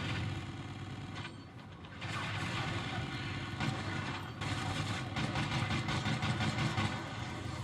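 Vehicle engine running in video game audio, a steady engine sound with a broad noisy wash over it that dips about a second in and picks up again at two seconds.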